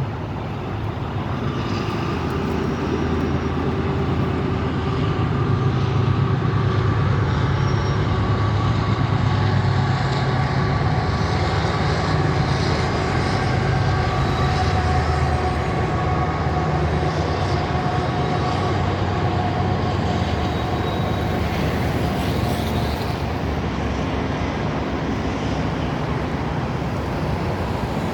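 Diesel locomotives of a train climbing a grade, a steady low engine rumble with a few held tones above it, building over the first several seconds and then holding steady.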